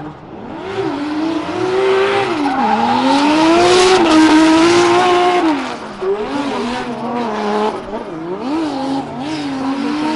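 Toyota 2JZ inline-six in a Volkswagen Beetle drift car, revving hard through a drift while the rear tyres spin and squeal. The engine holds near the top for a few seconds, then from about six seconds in the throttle is blipped up and down in quick swings.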